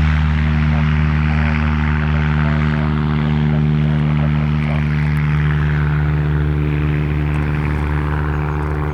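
Light piston-engined propeller aircraft at full take-off power: a loud, steady engine-and-propeller drone that slowly gets quieter.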